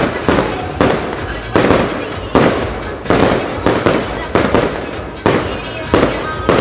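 Aerial firework shells bursting in rapid succession, about two bangs a second, each bang trailing off in echo.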